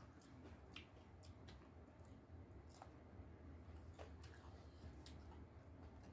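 Near silence: faint, scattered clicks of eating by hand, from fingers working rice on a plate and from chewing, over a low steady hum.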